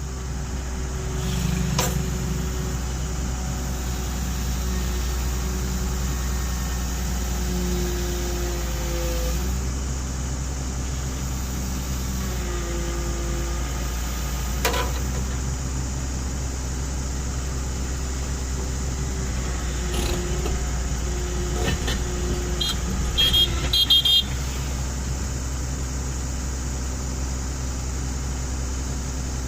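Excavator engine running steadily, with a whine that shifts in pitch as the machine works, a few sharp knocks, and a short cluster of metallic clanks about three-quarters of the way through.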